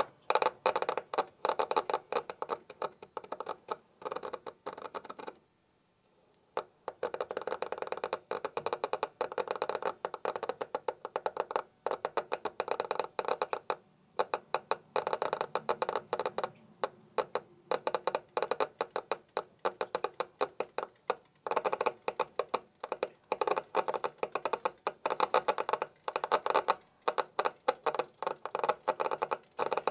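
Hand-cranked mutoscope flipping its reel of Polaroid photo cards: a fast, continuous clatter of cards snapping past the stop one after another. It halts for about a second around six seconds in, then starts again.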